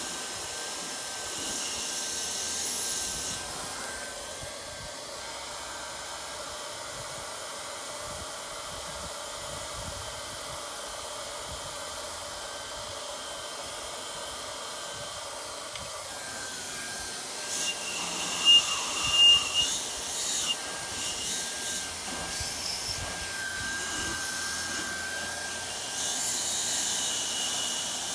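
A 1600 W handheld hot-air plastic welder blowing steadily: a continuous hiss of air with a thin steady whine from its fan, used here to heat and soften PVC pipe glued in a fitting. A few short, sharp high squeaks come about two-thirds of the way through.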